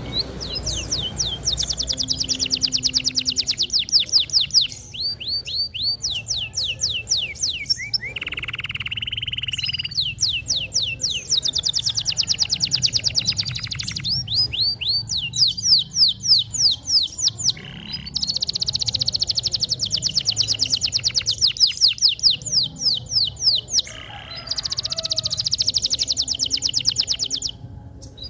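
Domestic canary in full song: long, very fast high trills and rolls, phrase after phrase with brief breaks, and one held steady note partway through.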